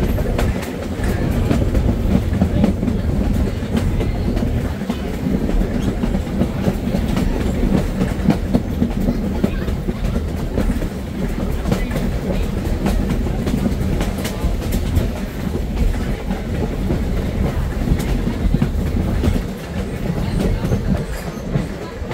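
Vintage passenger coach rolling along the track: a steady low rumble with wheels clicking over the rail joints.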